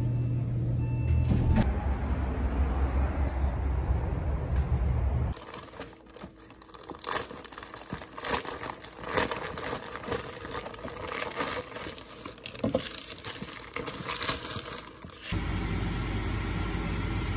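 A low steady rumble for about the first five seconds. Then a plastic mailer bag crinkles and tears as it is ripped open by hand, in irregular crackles. A steady noise follows near the end.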